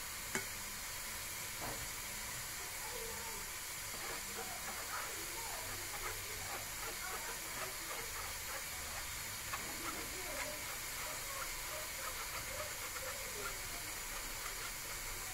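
A steady hiss throughout, with faint scratching of a spoon pressing flour and cocoa powder through a wire-mesh sieve, and a single click about half a second in.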